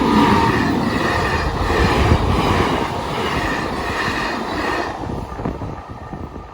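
Train passing through a level crossing, its cars running over the rails; loud for about five seconds, then dropping off as it moves away.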